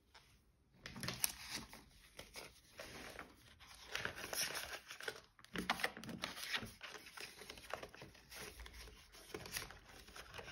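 Paper rustling and crinkling close to the microphone, with small scratchy clicks, as savings challenge sheets and cash envelopes are handled.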